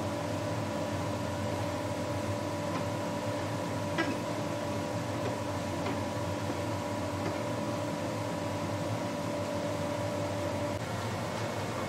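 Steady mechanical hum with a few steady tones, which stop near the end and leave a plainer hiss, and a few faint light clicks.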